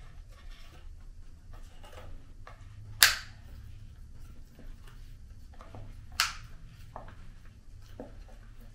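Plastic cover of an O2 Canada reusable mask snapping onto the mask body over the filter, two sharp clicks about three seconds apart, the first the louder, among light plastic handling noise. The click is the sign that the cover has latched.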